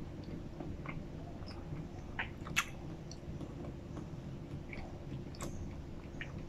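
A mouthful of McDonald's BBQ Beef Burger being chewed with the mouth closed, close to the microphone: soft, wet mouth sounds with scattered small clicks and smacks, a few of them sharper.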